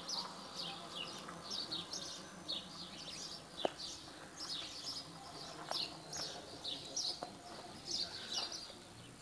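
Small birds chirping over and over in quick high clusters, with one sharp click about three and a half seconds in.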